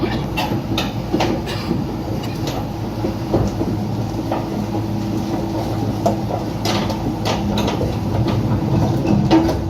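Heavy machine or vehicle running steadily, with a low hum and irregular metallic clanks and knocks.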